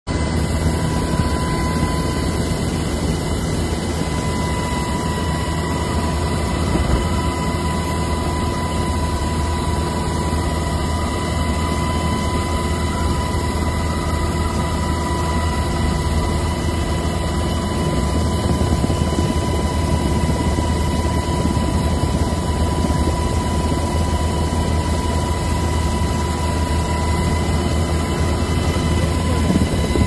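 US Coast Guard helicopter hovering, heard from inside the cabin at the open door: steady loud rotor and engine noise with a constant high whine.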